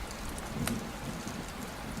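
Steady rain falling, an even hiss with a few sharp drop ticks, and a low rumble fading away in the first second.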